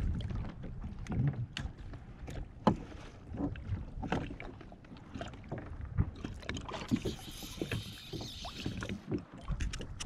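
Water lapping against a plastic sit-on-top fishing kayak's hull, with many small clicks and knocks as fishing tackle is handled on board. A hissing rustle comes up for about two seconds past the middle.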